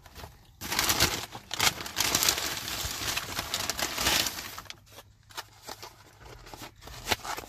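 Brown paper takeout bag rustling and crinkling as a hand rummages inside it. The crackling is loud for the first few seconds, then thins to lighter rustles and taps.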